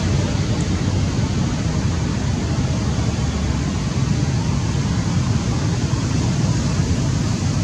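Steady low rumbling noise with a hiss above it, unbroken and without distinct calls or knocks.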